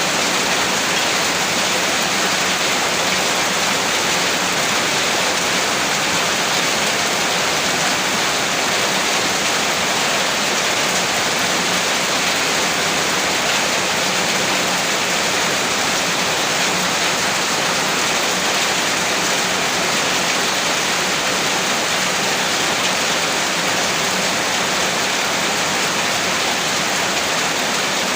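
Heavy rain falling as a steady, dense hiss with no separate drops or thunder standing out.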